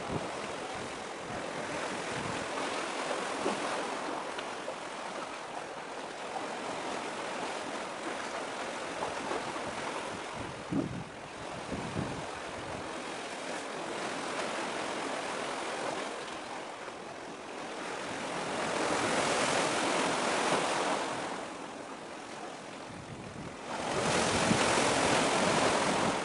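Small waves washing at the water's edge, a steady wash of noise that swells louder twice, about two thirds of the way through and again near the end.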